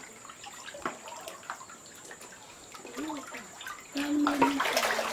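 Water sloshing and lapping as an otter swims in a shallow concrete tank, with a louder splash about four and a half seconds in.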